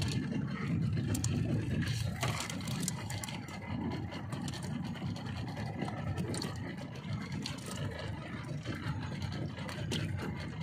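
Small fishing boat's engine idling with a steady low rumble, with scattered light clicks and scrapes as fishing line and hooks are handled.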